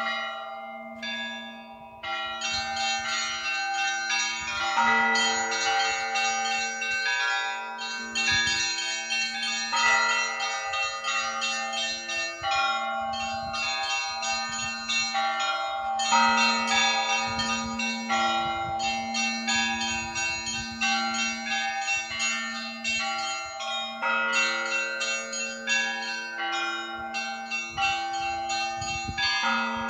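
Russian Orthodox church bells being rung: small high bells struck in quick, busy patterns over a lower bell beating about once a second, the tones overlapping and ringing on. There is a short lull about a second in, then the full peal resumes.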